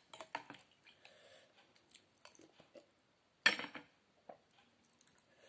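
Spoon clinking and scraping against a bowl of soup, with soft eating sounds and one louder clatter about three and a half seconds in.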